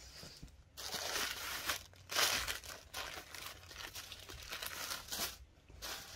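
Cloth rustling and crumpling as a folded suit piece is unfolded and shaken out by hand, in several bursts, loudest about two seconds in.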